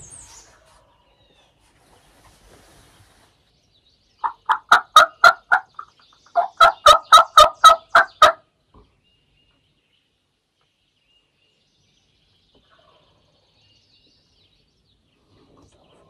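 Wild turkey gobbling twice in quick succession, each gobble a rapid, loud rattle of notes lasting under two seconds.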